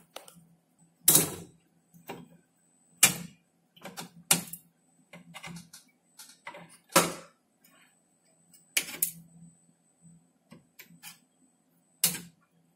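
Long-nose pliers clicking and knocking against the metal chassis and regulator pins as the pins are bent. The sharp, separate clicks come every second or two, over a faint steady hum.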